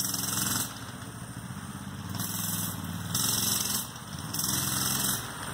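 Coleman BT200X mini bike's 196cc single-cylinder engine running while ridden, the throttle opened and eased off several times so the engine note swells and drops.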